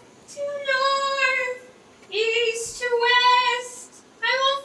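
A woman's high voice wailing in long, held, sung cries, three of them with short breaks between: a desperate, withering cry from the wilderness.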